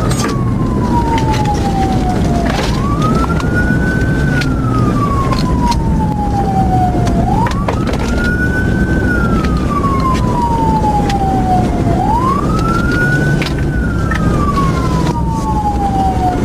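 Police car siren wailing, each cycle a quick rise and a long slow fall, repeating about every four and a half seconds, over a steady low rumble of vehicle noise.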